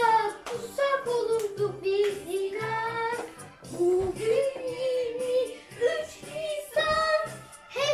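Children's song playing: a high sung vocal melody in phrases, with short breaks between lines, over an instrumental backing track with a repeating bass.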